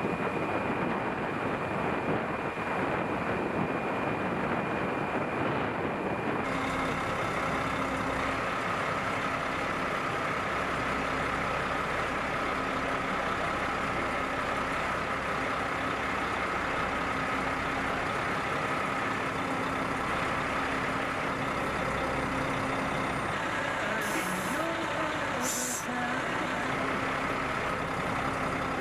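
Heavy military truck engine running steadily. It starts as a rumbling, wind-blown noise, then changes abruptly about six seconds in to a steadier hum. Two short hisses come a few seconds before the end.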